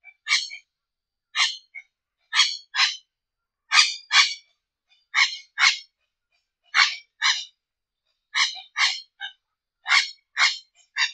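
Curl-crested aracari giving a series of short, rasping calls, mostly in pairs about half a second apart, repeated roughly every one and a half seconds.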